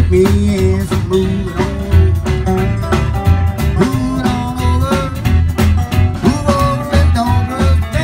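Live honky-tonk country band playing, with guitar over a steady bass beat.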